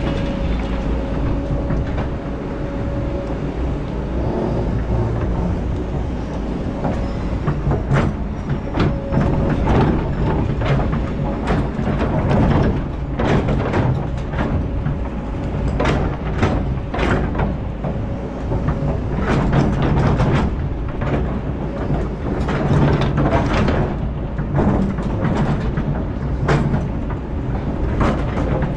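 Kobelco crawler excavator's diesel engine running steadily under load, with a thin whine in the first few seconds, while its bucket scrapes and clanks against stones in repeated sharp knocks that come thicker from about eight seconds in.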